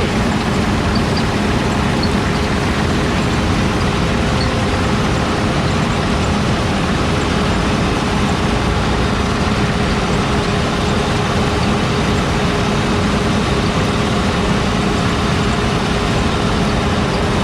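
Heavy diesel farm machinery running steadily under load: an even, loud engine drone with a constant hum and rumble that does not change.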